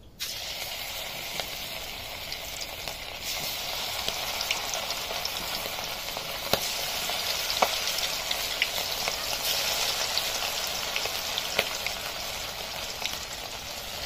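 Hot oil in a kadhai sizzling as masala-coated pieces are dropped in to deep-fry. The sizzle starts abruptly just after the start and carries on as a steady hiss with scattered sharp pops.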